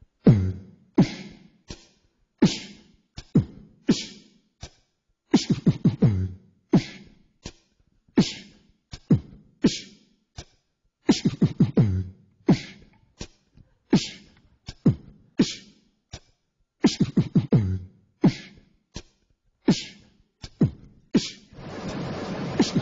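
Vocal beatboxing into a microphone: a steady beat of mouth-made kick drum, snare and hi-hat sounds, about two hits a second, some kicks with a deep falling boom. Near the end a long hissing noise sets in under the beat.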